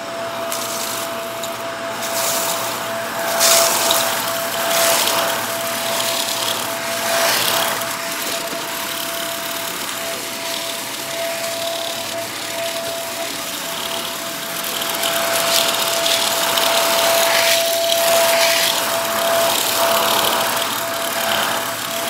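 Upright vacuum cleaner running with a steady high motor whine, sped up to double speed. A few short gritty rattles come as it sucks up bits of debris from the rug.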